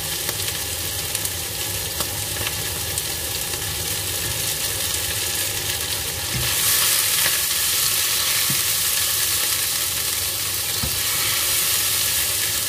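Egg deep-frying in hot oil in a wok, a steady sizzle that grows louder about six seconds in, as for a crispy Thai fried egg.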